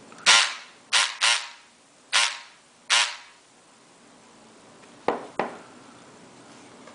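Homemade electric lock pick gun made from Black & Decker 3.6-volt cordless scissors, switched on in five short buzzing bursts as its motor drives the pick blade. Two light clicks follow about five seconds in.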